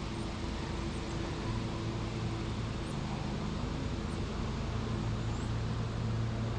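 Honeybees buzzing around an open hive: a steady low hum.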